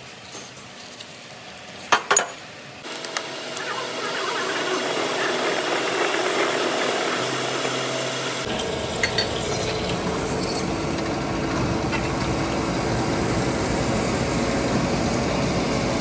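A few sharp clinks of steel kingpins knocking together as they are handled. From about three seconds in comes the steady noise of a metal lathe cutting a steel pin. About eight seconds in it gives way to louder, lower-pitched machining noise from a drill boring into the end of a pin.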